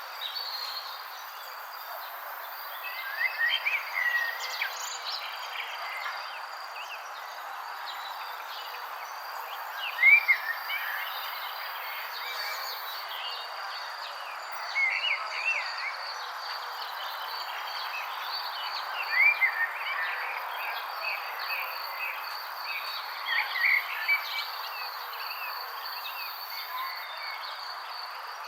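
Wild birds chirping in short, separate phrases every few seconds, over a steady high-pitched hum and an even background hiss.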